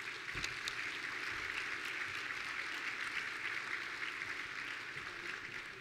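Audience applauding steadily, fading near the end.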